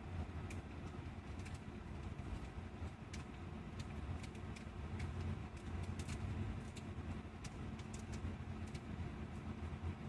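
Steady low rumble of a moving coach heard from inside its cabin, engine and road noise together, with scattered light clicks throughout.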